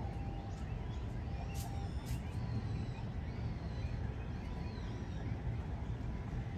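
Steady low background rumble, with a few faint, short high-pitched chirps and clicks about two to four seconds in.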